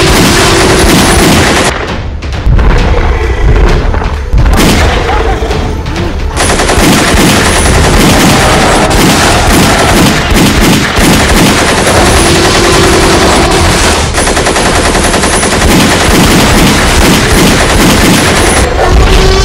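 Rapid automatic-rifle gunfire, dense bursts of shots with brief letups about two and four to six seconds in.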